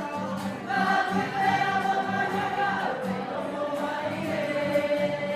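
A kapa haka group singing a Māori song together, many voices holding long, slowly gliding notes.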